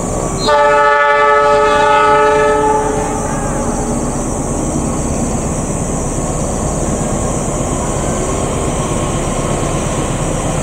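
Diesel locomotive horn sounding one long chord of several tones, starting about half a second in and lasting a little over two seconds, as the passenger train approaches. After it, the steady running noise of the oncoming train.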